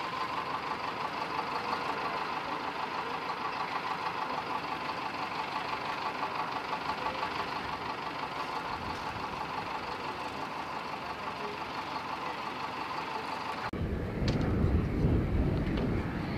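Steady mechanical drone of a running engine or power unit, with a fast even flutter in its tone. It cuts off abruptly near the end, giving way to a loud low rumble of wind buffeting the microphone.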